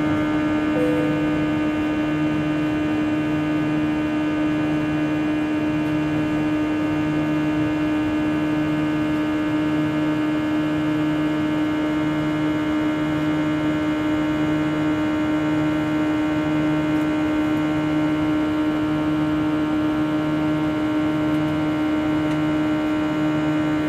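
Jet engines of an Airbus A321 heard from inside the cabin during the climb: a steady engine tone with a slow pulsing throb about once a second.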